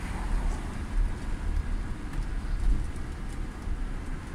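Coach moving slowly in city traffic, heard from the driver's cab: a steady low engine rumble with road and traffic noise.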